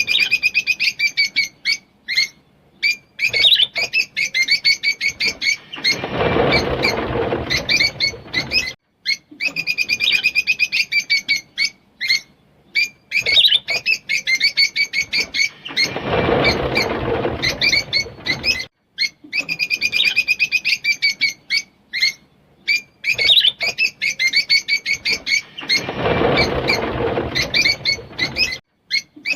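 Green Fischer's lovebirds chirping in rapid strings of sharp, high chirps, broken about every ten seconds by a denser, harsher stretch of two to three seconds: the chattering 'giggle' song of the lovebird.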